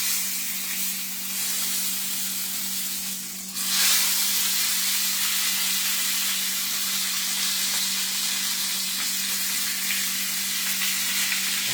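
Chuck roast searing in hot olive oil in a pan on high heat, sizzling steadily; the sizzle drops away briefly about three and a half seconds in, then comes back louder.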